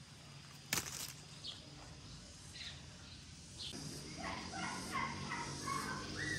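A sapodilla fruit is snapped off its stalk by hand, giving one sharp snap under a second in, with a few faint bird chirps. Background music comes in about four seconds in.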